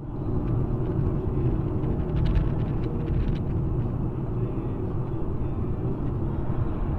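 A car driving along a snow-covered highway, heard from inside the cabin: a steady low rumble of engine and tyre noise.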